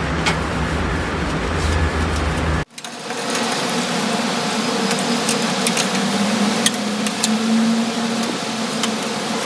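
A steady mechanical hum and noise with a few light clicks. It cuts out abruptly for a moment about two and a half seconds in, then returns without its low rumble.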